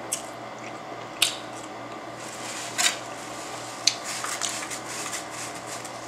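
Takeout food packaging being handled: a few sharp crackles and clicks, then a stretch of denser rustling about two-thirds of the way through, over a low steady room hum.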